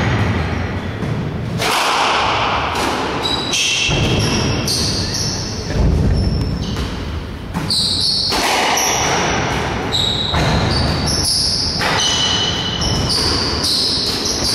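Squash rally: the ball cracks off rackets and the front wall in quick strikes less than a second apart, while the players' shoes squeak in short high chirps on the wooden court floor.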